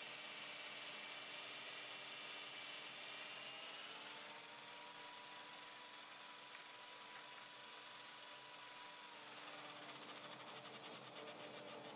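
Electric drill in a drill stand spinning a sanding attachment used as a thicknessing sander, running under the load of a board being fed beneath it. About four seconds in its whine rises in pitch and holds as the board comes free, then from about nine seconds it falls away as the drill winds down.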